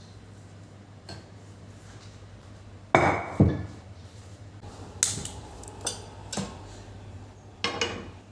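Kitchenware knocking and clinking: a few sharp strikes, the loudest two close together about three seconds in, then several lighter ones, over a steady low hum.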